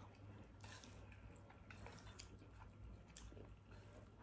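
Faint chewing of a mouthful of instant noodles, with soft wet mouth clicks every second or so.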